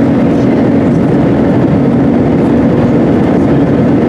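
Jet airliner's engines at climb power heard from a window seat inside the cabin: a loud, steady roar with a constant low hum.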